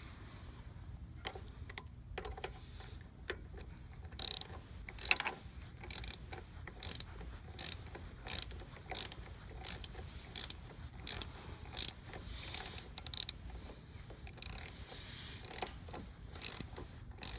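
Socket ratchet wrench clicking in short strokes, a few faint clicks at first and then about one and a half strokes a second from about four seconds in, as the lock nut on the brake lever's pivot bolt is tightened.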